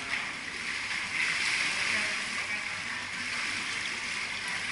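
Swimming-pool water splashing and sloshing steadily, with faint voices in the background.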